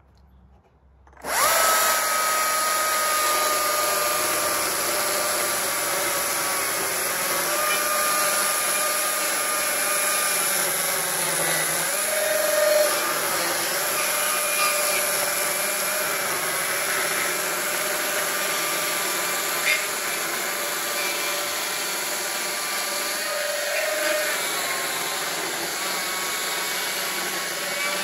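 Stihl cordless electric chainsaw starting suddenly about a second in and cutting lengthwise along a log: a steady high whine whose pitch dips slightly now and then as the chain bites into the wood.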